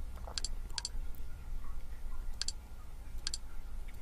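About five sharp clicks of a computer mouse at uneven intervals, over a faint low hum.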